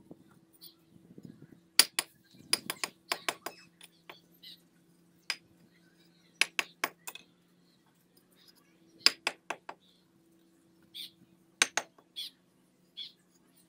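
Steel mason's trowel clinking and tapping against fired bricks and mortar as they are set, in several short bursts of sharp strikes, over a faint steady hum.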